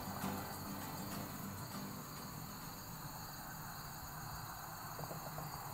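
Crickets chirping in a steady, high-pitched chorus.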